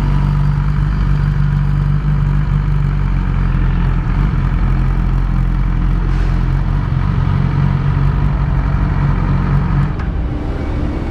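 Yamaha R6 inline-four engine running at low speed as the motorcycle rolls slowly along, steady with a slight drop in level near the end. The bike has the unstable idle and jerky acceleration that the owner suspects come from a faulty spark plug or ignition coil.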